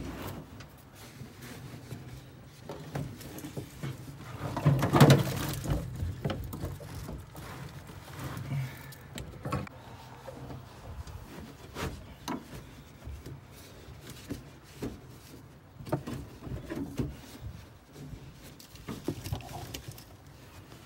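Car carpet being pushed and smoothed into the floor pan around a loose wiring harness: scratchy rustling and shuffling with scattered small knocks and clicks, loudest in a burst of rustling about five seconds in.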